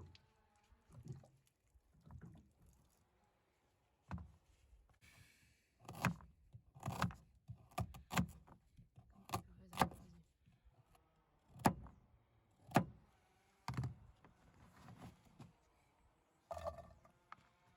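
Irregular knocks and clunks of things being handled and set down, about a dozen sharp ones spread unevenly through the stretch.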